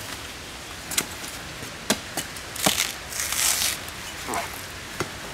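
Machete blows chopping into the fibrous trunk and leaf bases of a coconut palm, a handful of sharp knocks with rustling and tearing of palm fibre between them.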